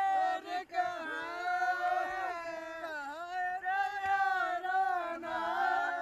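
Singing, with more than one voice holding long, slightly wavering notes.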